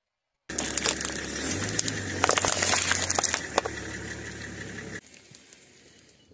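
Dense crackling and crinkling with many sharp clicks as a car tyre crushes objects on asphalt, over a low steady hum. It starts suddenly about half a second in and drops away abruptly about five seconds in.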